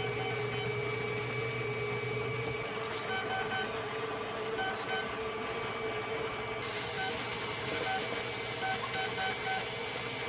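Hypercube 300 3D printer printing: its motors whine in short tones that jump between pitches as the print head moves, over a steady hum from its cooling fans.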